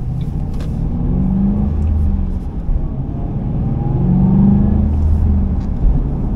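The 2005 Ford Mustang GT's 4.6-litre V8, heard from inside the cabin, pulling through two gentle accelerations. The engine note rises, drops back briefly about two and a half seconds in, then rises again.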